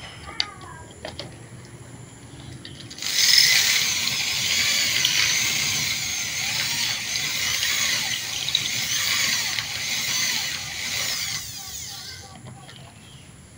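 Electric hand drill boring into a duralumin knife handle, the bit grinding and squealing in the metal to widen the hole for the machete's tang. It starts abruptly about three seconds in, runs for about eight seconds and then winds down.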